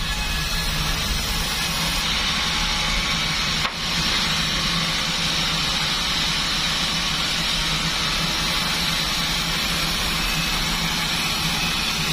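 Bandsaw sawmill machine running steadily, a continuous hum with hiss, with a brief dip about four seconds in.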